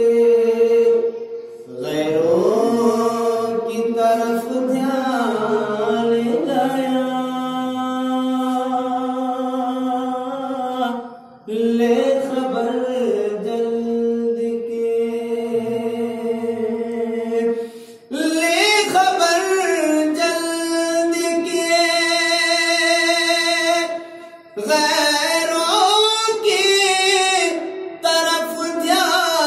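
A man's solo voice singing unaccompanied into a microphone, in long held, melismatic phrases with short breaks for breath between them.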